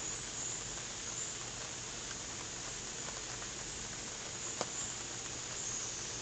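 Steady rain falling, an even hiss with a few sharp drip taps, the clearest about four and a half seconds in.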